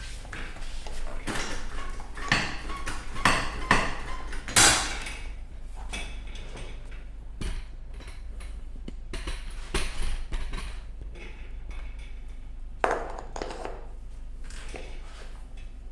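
Hands working a scooter tyre and tube onto the wheel rim: an irregular run of clicks and knocks, with the loudest knock about four and a half seconds in and another near the end, over a steady low hum.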